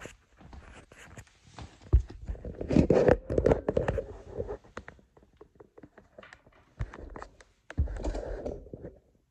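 Handling noise from a phone camera being picked up and repositioned: knocks, clicks and rustling against the microphone, with the loudest thump about two seconds in.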